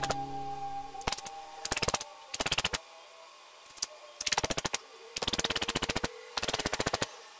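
Short bursts of rapid clicking, about six rattling bursts each under a second long, with a held musical tone dying out about a second in.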